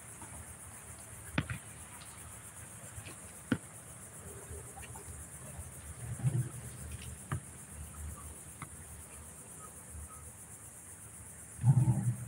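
Steady high-pitched insect chorus, with a few sharp knocks from a basketball bouncing and striking the hoop and a louder low thump near the end.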